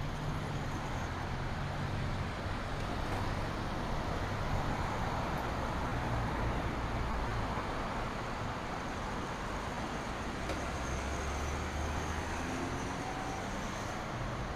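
Steady city street traffic: cars and other vehicles driving past on the road alongside, a continuous rumble and tyre noise.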